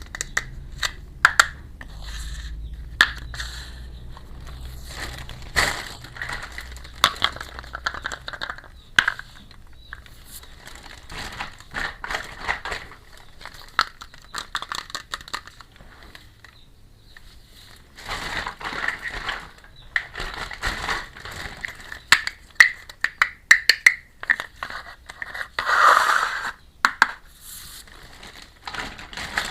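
Plastic packaging crinkling and small plastic toy pieces clicking and tapping while a miniature toy kitchen set is unboxed and handled. It comes in irregular bursts of sharp clicks and rustles.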